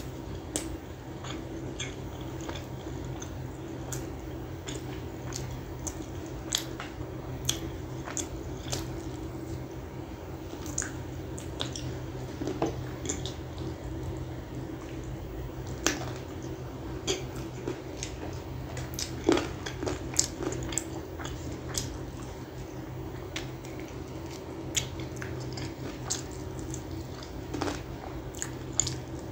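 Close-miked chewing and biting of gravy chicken eaten by hand, with wet mouth sounds and sharp, irregular crunchy clicks, the loudest about two-thirds of the way through, over a steady low hum.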